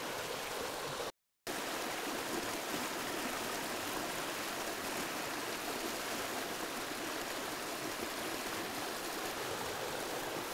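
Fast river current rushing and swirling over a rocky bank, a steady wash of water noise. It drops out to silence for a moment about a second in.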